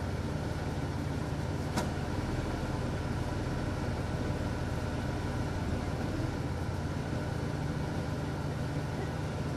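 An engine idling steadily, with a single sharp click about two seconds in.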